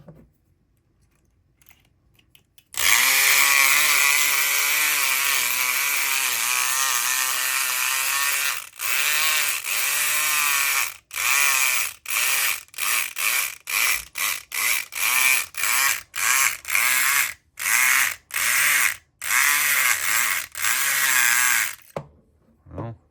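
SouthOrd E500XT electric pick gun buzzing, its pick needle vibrating in a Schlage SC1 pin-tumbler lock. It starts about three seconds in and runs steadily for about six seconds, then is switched on and off in about fifteen short spurts before stopping.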